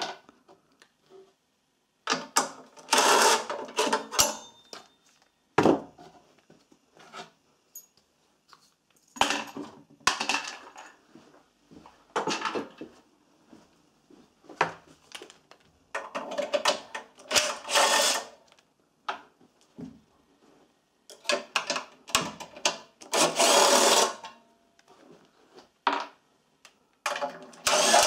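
Cordless drill/driver running in several short bursts of a second or two, spinning out the bolts that hold the recoil starter housing on a Honda GX160 engine, with small clicks and knocks of the bolts and parts being handled between bursts.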